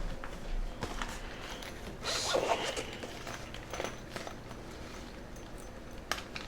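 Handling and rummaging at a workbench: scattered light clicks and knocks, with a louder scraping rustle about two seconds in.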